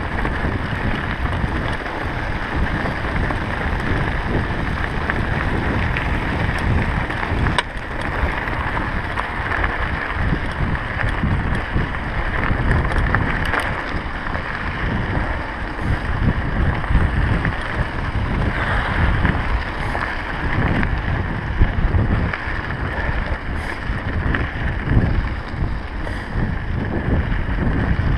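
Wind buffeting the microphone of a bike-mounted action camera, over the steady rumble of mountain bike tyres rolling on a gravel dirt road, with a few faint clicks and rattles from the bike.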